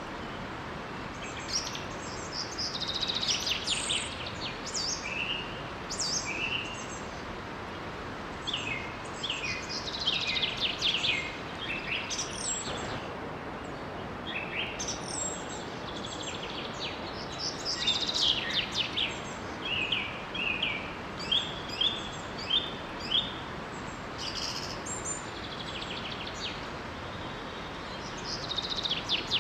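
Several songbirds chirping and singing over the steady rush of a small waterfall, with a short run of evenly spaced chirps about two-thirds of the way through.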